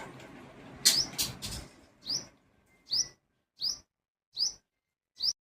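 Hummingbird giving a series of short, sharp chirps, about seven of them, evenly spaced a little under a second apart in the second half.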